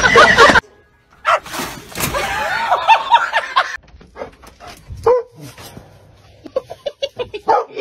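A dog making short, quick yips in a run near the end, after a loud burst at the start that cuts off abruptly.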